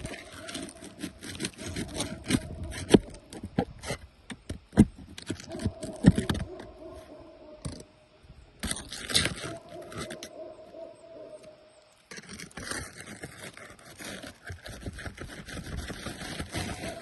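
Scraping and sharp knocks of a hand tool prying at asphalt roof shingles, with a steady hum at one pitch that comes and goes.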